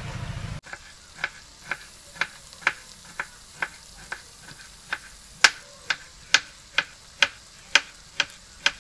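Kitchen knife chopping cucumber on a wooden cutting board: sharp knocks of the blade striking the board, about two a second.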